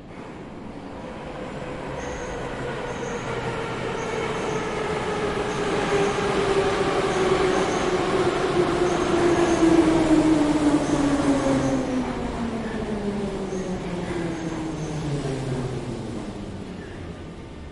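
Moscow Metro train arriving: the rumble builds to a peak about ten seconds in, while the motors' whine falls steadily in pitch as the train brakes. The whine dies out about sixteen seconds in as the train comes to a stop.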